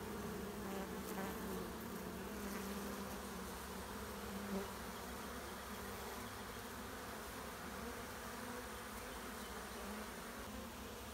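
Honeybees buzzing in a steady hum as many of them stream out of their nest, a colony being driven to abscond by a repellent spray.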